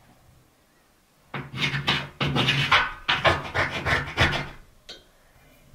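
A steel square-tubing frame scraping and knocking against the cut edge of a corrugated steel container wall as it is worked into the hole, in irregular grating strokes that start about a second and a half in. The frame binds because the hole is still slightly too small at the bottom.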